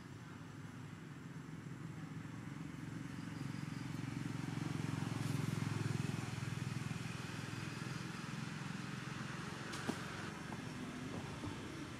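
Low engine hum of a passing motor vehicle, growing to its loudest about halfway through and then fading, with one sharp click near the end.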